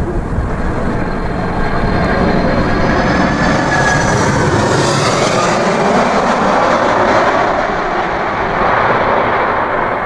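Twin-engine jet airliner flying low overhead on final approach: the engines run with a loud roar that builds as the plane nears, with a high whine over it that swells about halfway through.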